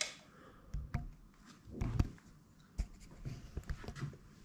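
Soft, irregular footsteps and small knocks on a tiled floor: a scattering of low thuds and clicks.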